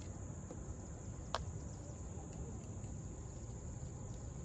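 Steady high-pitched drone of crickets, over a low background rumble, with a single sharp click about a second in.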